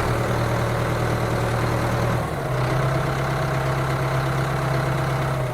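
Steady engine-like idling hum, with a brief dip about two seconds in.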